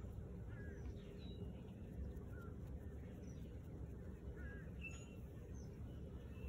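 Faint, scattered bird chirps, short and high, over a steady low background rumble.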